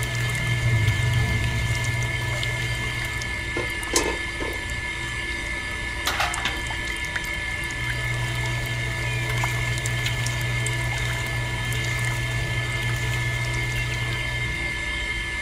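Liquid trickling from a spout into a small plastic bucket, over the steady hum of the small electric motor that drives the miniature juicer's rollers. A couple of sharp clicks about four and six seconds in.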